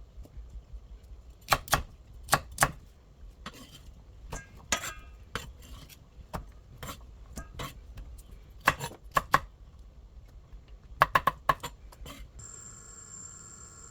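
Kitchen knocks and clatter: a knife and utensils striking a cutting board and dishes in irregular clusters of sharp knocks. Near the end a steady high-pitched tone comes in.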